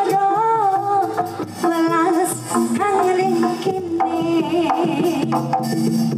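Jaranan ensemble music played live: a bending melody line over hand drums and other percussion, with frequent sharp drum strokes.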